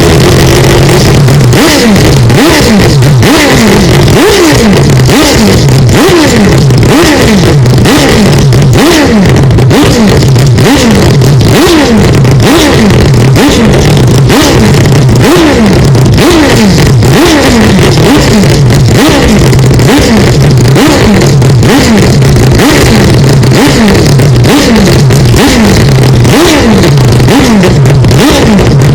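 Mazda 787B's four-rotor R26B rotary engine revving, with its pitch falling again and again, more than once a second, over a steady low drone. The audio is deliberately overamplified into heavy clipping distortion.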